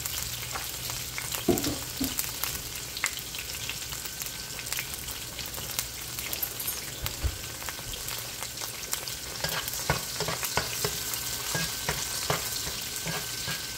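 Chopped onions frying in hot oil in a pot, sizzling steadily with frequent small crackles and pops as they brown.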